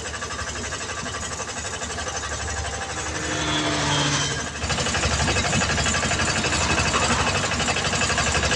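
An engine or motor running steadily with a fast, even chatter. It gets louder about four and a half seconds in.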